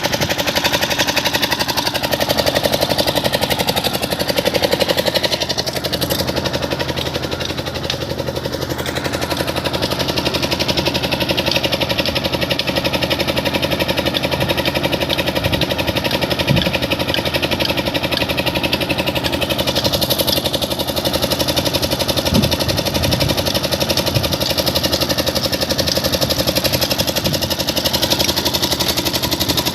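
A crane's engine running steadily, a continuous mechanical drone with a fast even pulsing.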